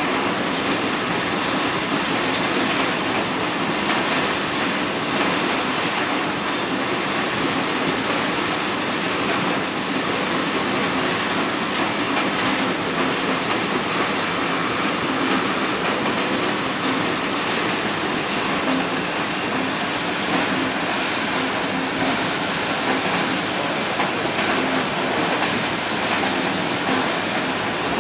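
Garlic head sorting machine running: a dense, steady patter of garlic bulbs rattling and tumbling across its vibrating perforated screens, over a low steady hum.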